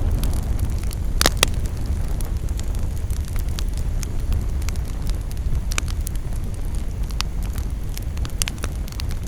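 Campfire burning with a steady low rumble and scattered sharp crackles and pops, the loudest pair of pops a little over a second in.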